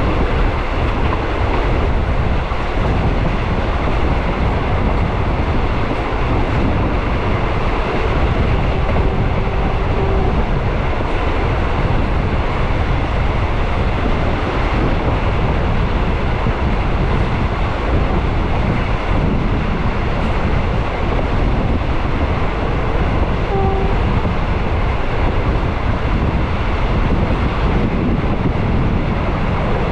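Steady rumble of a moving train running on rails, even and unbroken throughout, with a couple of brief faint tones.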